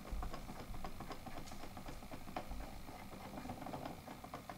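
Electric Eel Nano e-spinner's small electric motor running at a raised speed, its flyer and bobbin spinning with a faint steady hum and scattered light clicks.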